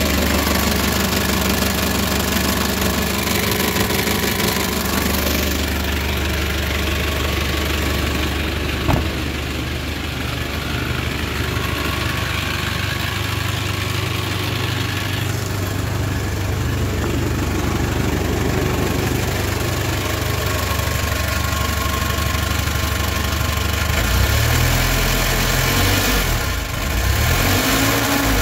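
2005 Kia K2700's 2.7-litre four-cylinder diesel engine idling steadily during an engine test, with a single sharp click about nine seconds in. Near the end it is revved up briefly, the pitch rising and falling.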